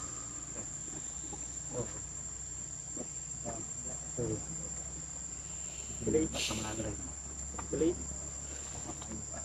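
Insects keep up a steady, high, even drone, with a few short, faint vocal sounds scattered through it and a brief hiss about six seconds in.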